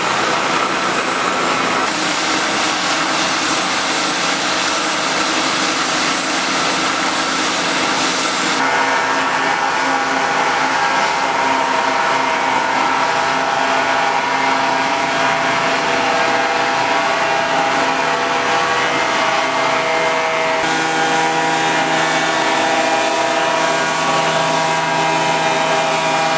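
Steady, loud jet-engine noise with several held whining tones. Its pitch and tone change abruptly twice, about 9 and 21 seconds in.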